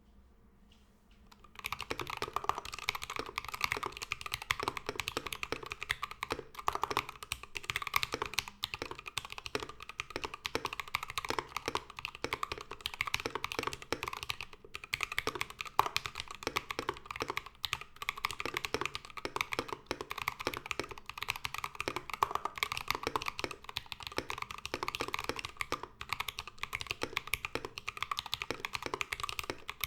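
Fast, continuous typing on a mechanical keyboard with Tecsee Ice Grape linear switches, mounted on a brass plate with no plate foam and fitted with cherry-profile keycaps. The typing starts about a second and a half in, after near silence.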